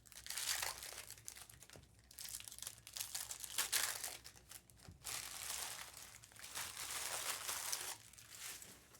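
Foil trading-card pack wrappers being torn open and crinkled, in several bursts with short pauses between them, stopping just before the end.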